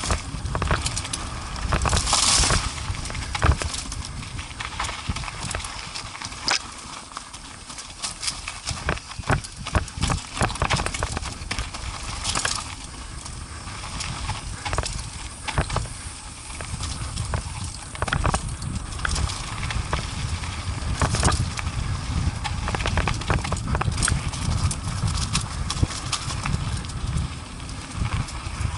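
An ATV jolting over a rocky trail: irregular knocks and rattles from the machine over a steady low rumble.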